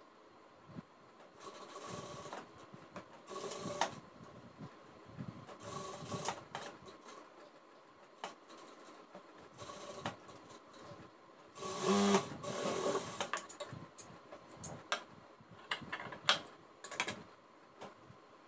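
JACK industrial sewing machine stitching in a series of short bursts, starting and stopping every second or two, with the loudest and longest run about twelve seconds in.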